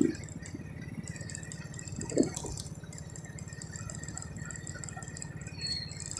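Small motor scooter engine running steadily at low road speed, a fast rattly pulsing hum, with a short thump about two seconds in.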